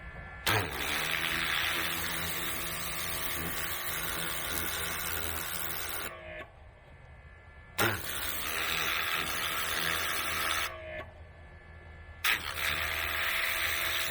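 Pressure washer jet with a rotating tip spraying against the tractor loader's greased pivot joints in three long bursts, stopping twice briefly, blasting the caked grease out of the zerk fittings.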